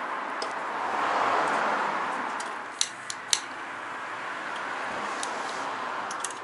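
A steady rushing noise that swells about a second in and then eases, with three sharp clicks about three seconds in.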